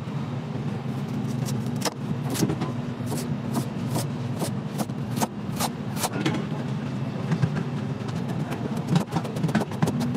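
Chef's knife slicing a carrot on a plastic cutting board: sharp knife strikes on the board about two to three a second, quickening into rapid chopping near the end as the slices are cut into matchsticks. A steady low hum sits underneath.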